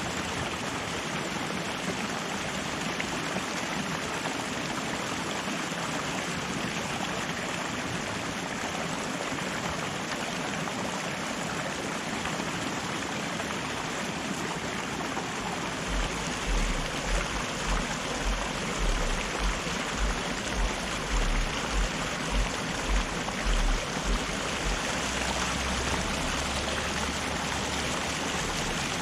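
River water rushing steadily over rocks, an even full hiss. About halfway through, a run of low thumps starts at roughly one and a half a second, then settles into a steady low rumble near the end.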